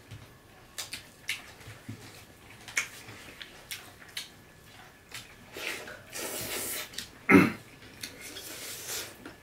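People eating rice and curry by hand from plates: scattered light clicks and clinks of food and plates, a noisier stretch of about a second around six seconds in, and a sharper knock about seven seconds in, the loudest sound.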